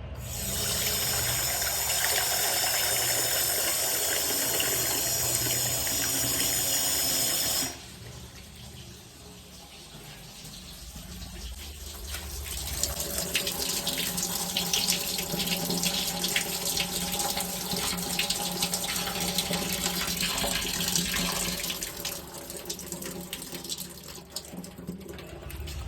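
Water running at a toilet's tank-top hand-wash basin: a loud hissing rush cuts off abruptly about eight seconds in. Then water running and splashing into the basin builds up again, with a low steady hum under it.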